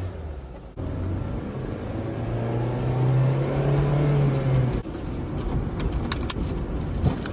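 Honda Civic FD6's i-VTEC four-cylinder engine heard from inside the cabin, held at high revs with its pitch climbing steadily. About five seconds in the engine note drops off suddenly as the driver lifts for a gear change, and a few sharp clicks follow near the end.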